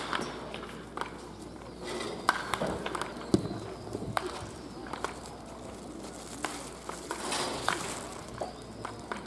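Wooden baseball bats cracking against balls hit off batting tees: repeated sharp cracks at irregular intervals, one loud hit a little after three seconds in.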